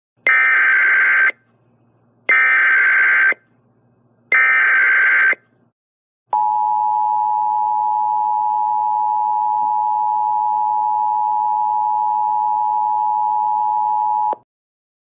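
Emergency Alert System alert opening: three one-second bursts of SAME header data tones, then the two-tone EAS attention signal (853 and 960 Hz) held steady for about eight seconds before cutting off suddenly.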